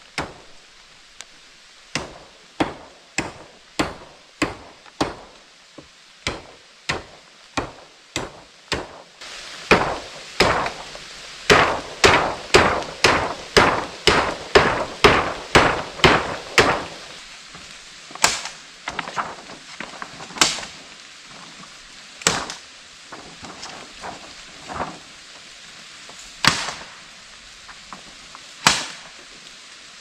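A hand tool striking wood over and over: steady blows at first, then a faster, louder run of about two blows a second in the middle, then single blows a couple of seconds apart.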